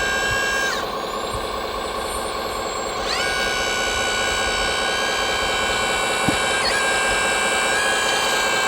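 Steady multi-tone whine of radio-controlled model trucks' and machines' electric motors. The pitch drops just under a second in and climbs back at about three seconds, with a brief dip near seven seconds and a small knock just after six.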